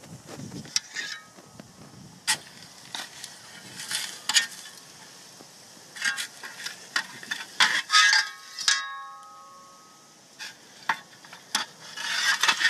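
Metal shovel scraping and scooping through soil and charcoal: a run of sharp scrapes and crunches, with a few short metallic rings a little past the middle and near the end.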